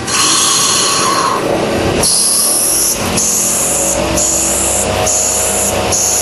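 CNC lathe machining: a loud, high-pitched cutting hiss over a low machine hum, breaking off briefly about once a second.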